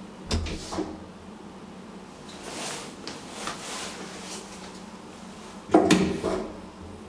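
Clunks and knocks inside a Thyssen hydraulic elevator car. A thump and a smaller knock come within the first second, a rushing noise follows around three seconds in, and a loud bang with a short rattle comes about six seconds in.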